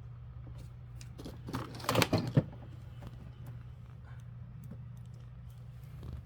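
Ogura cordless hydraulic punching machine with a low steady hum, and a short burst of clicking, clattering handling noise about two seconds in.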